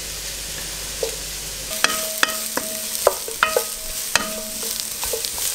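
Wooden spoon stirring broccoli, red onion and garlic in an enamelled stew pot, the vegetables sizzling in butter. From about two seconds in, the spoon knocks against the pot again and again, each knock ringing briefly.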